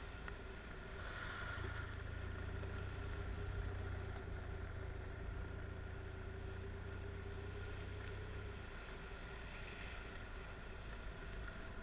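Motorcycle engine running steadily as the bike rides a dirt trail. About three-quarters of the way through, its low rumble eases off.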